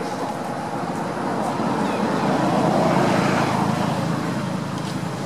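A road vehicle passing by off-camera, its noise swelling to a peak about three seconds in and then fading.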